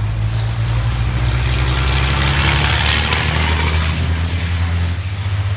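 Racing truck's diesel engine running at speed as the truck passes, the sound rising to its loudest about halfway through and then easing off over a steady low drone.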